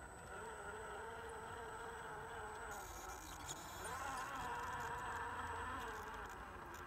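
Small electric motor and gears of an RC scale crawler whining as it creeps over a wooden plank bridge. The whine wavers in pitch and jumps higher about four seconds in as the throttle is opened.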